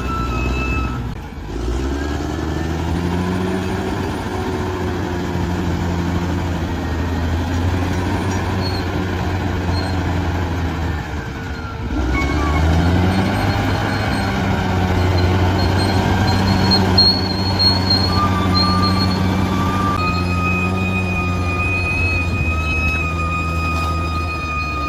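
Bulldozer's diesel engine working under load. It dips briefly and revs back up twice, once just after the start and again about halfway through, with a high, steady whine over it at times.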